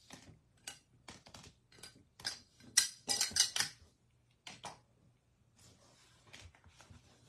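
Small hard objects clicking and clattering on a tabletop as things are moved aside to clear space, with a dense run of louder clicks a little past the middle.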